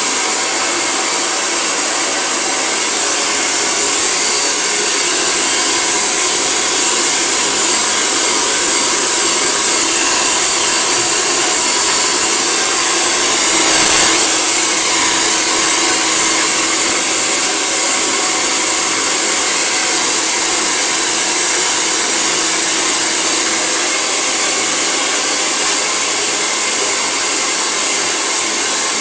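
Handheld hair dryer blowing steadily on wet hair, a loud, even rushing noise, with one brief knock about halfway through.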